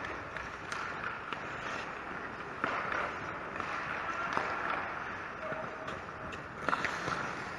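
Ice hockey play on a rink: a steady scrape of skates on the ice broken by sharp clacks of sticks and puck, several times, the loudest near the end.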